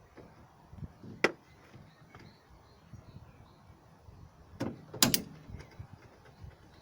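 Sharp clicks and knocks of car parts and hand tools being handled during a thermostat housing job: a single click about a second in, then a cluster of knocks about five seconds in, the loudest.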